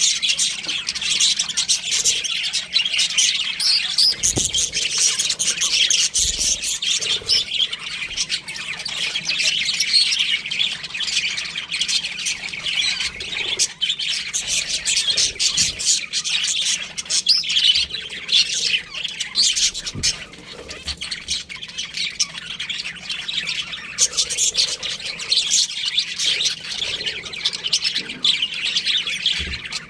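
Budgerigars chirping and squawking without pause, many quick calls overlapping.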